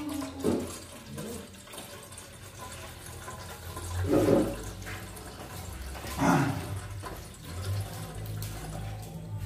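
Hot water running from a water dispenser's tap into a stainless steel pot, a steady rush with two louder moments about four and six seconds in.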